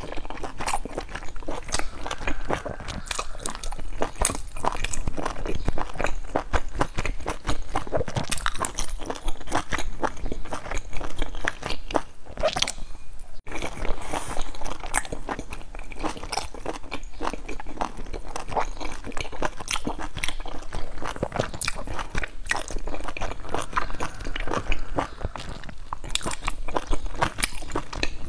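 Chewing and biting into large pan-fried dumplings: a dense run of short, sharp, wet clicks of the mouth and food, with a brief break about halfway.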